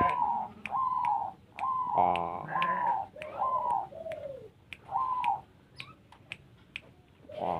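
Caged zebra dove (perkutut) cooing its rhythmic song: a string of short cooing notes, the last few falling lower, then a pause about two-thirds through. Sharp ticks sound throughout.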